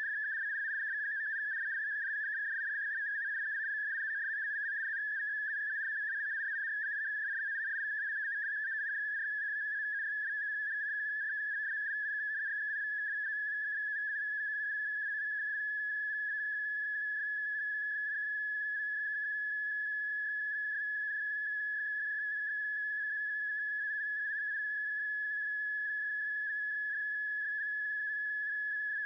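A steady, unbroken high-pitched tone with fainter overtones, holding one pitch and level throughout, with a slight waver in the first few seconds.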